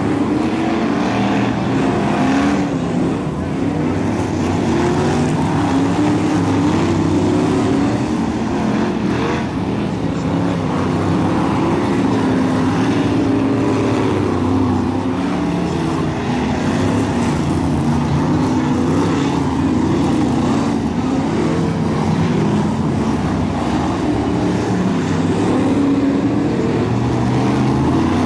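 Several BriSCA F1 stock cars' V8 engines running hard in a race, their pitch rising and falling as they rev through the bends and down the straights.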